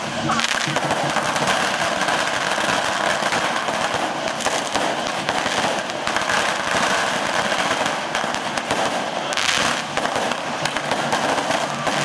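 Strings of firecrackers going off in a dense, continuous crackle of rapid bangs.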